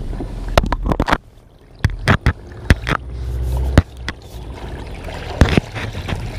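Water splashing with a scattering of sharp knocks as a hooked barramundi is handled in the water at the side of a wooden boat, over a steady low rumble.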